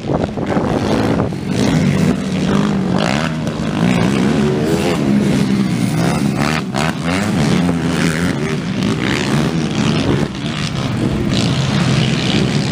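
Several motocross racing quads (ATVs) running on a dirt track, their engines revving up and down over and over as they accelerate around the course.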